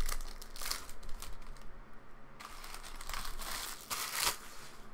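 Clear plastic trading-card pack wrapper crinkling as it is handled and crumpled, in two spells of crackling.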